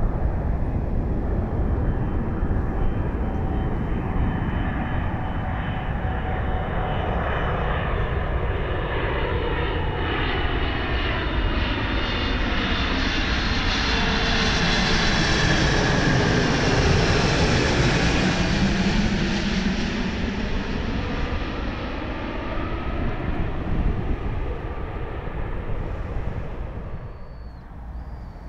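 Boeing 777-200 airliner on final approach with its gear down, its twin turbofan engines building to a loud rushing whine as it passes low overhead. The pitch sweeps as it goes over, it is loudest a little past halfway, and then it fades away near the end.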